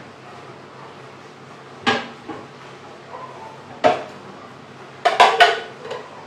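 Kitchenware being handled: dishes and utensils clattering, with a sharp knock about two seconds in, another near four seconds, and a quick run of clinks and knocks a little after five seconds.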